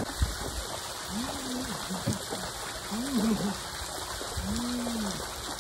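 Pool water sloshing and trickling around an inflatable boat as a wet dog moves about in it. A voice hums three short low notes, about a second in, about three seconds in and just before the end.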